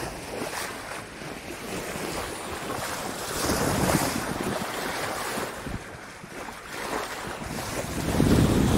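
Wind buffeting the microphone over water rushing along the bow of a moving boat. The wind rumble gets louder near the end.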